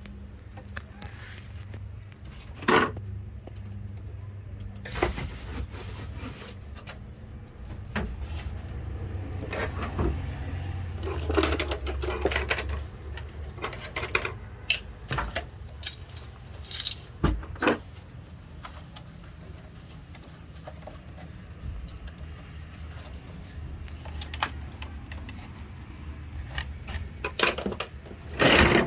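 Scattered clinks and knocks of small metal objects being handled, over a steady low hum.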